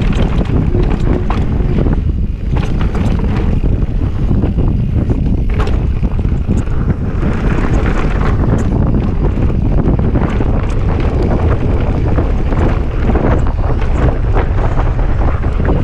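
Wind buffeting the microphone at downhill riding speed over the rumble of mountain bike tyres on a dirt trail, with frequent short clatters and knocks from the bike over the rough ground.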